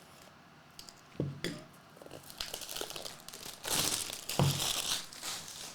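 Wrapping on a trading-card box being torn open and crumpled, a loud crinkling rustle in the second half, with two soft knocks as the box is handled.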